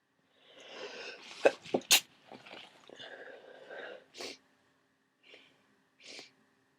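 A person with a cold sneezing: a breathy build-up for about a second, then sharp, explosive bursts between about one and a half and two seconds in. A few short, quieter bursts of breath follow.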